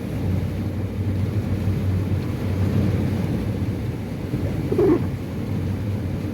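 Bus engine running with a steady low hum, heard from inside the vehicle, with a short squeak about five seconds in.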